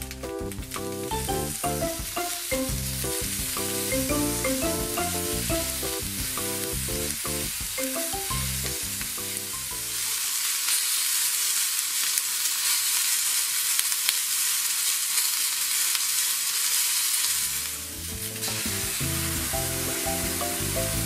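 Green pepper strips sizzling steadily as they fry over medium heat in a black iron frying pan. Background music plays over the sizzle for roughly the first half, stops for several seconds leaving only the sizzle, and comes back near the end.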